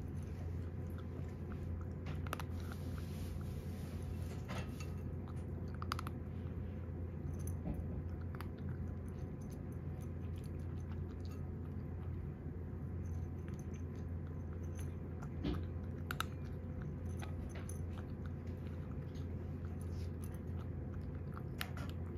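A cat crunching dry kibble from a bowl, with small, irregular crunches and clicks. A steady low hum runs underneath.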